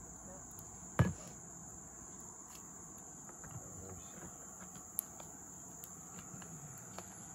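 Steady high-pitched insect chorus, with scattered faint clicks and one loud thump about a second in.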